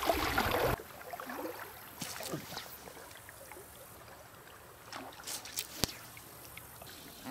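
Quiet stream-side ambience: faint water lapping and trickling, with a few soft clicks, faint short chirps and one sharp click about six seconds in. A loud rush of noise in the first second cuts off suddenly.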